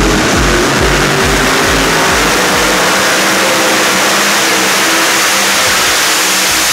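Multi-engine modified pulling tractor running flat out under load, a loud, dense, steady engine roar. A thumping dance-music beat runs under it for the first few seconds and then drops out.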